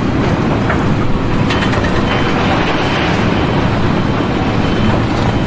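Steady, loud mechanical rumble, like heavy machinery running.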